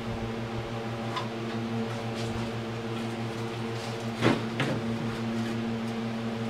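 A steady low machine hum, with a few light knocks and clicks as the ATV transmission case and shift linkage are handled. The loudest knocks come about four seconds in.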